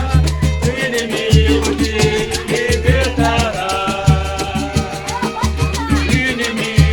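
A band playing an upbeat Latin-style passage without singing: a melody line over repeated bass notes and a fast, steady percussion beat.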